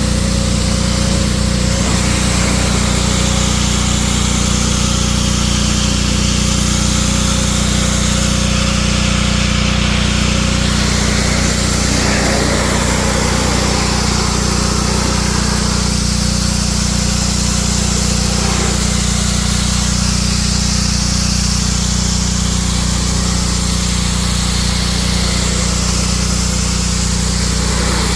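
A motor running steadily at a constant speed, with a low hum that never stops or changes pitch.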